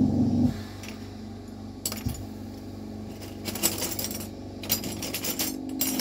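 Glass rods clinking: a single light clink about two seconds in, then quick clusters of sharp clinks from about three seconds on. A low steady hum stops about half a second in.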